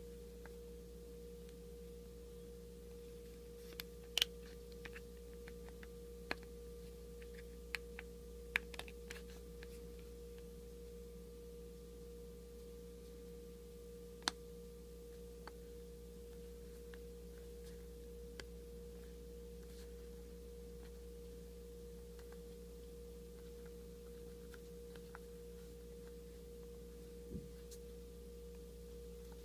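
A steady hum with a constant tone underneath. Over it come scattered small, sharp plastic clicks and snaps as a goggle lens is worked into its frame. The clicks bunch up in the first half and are sparse after that.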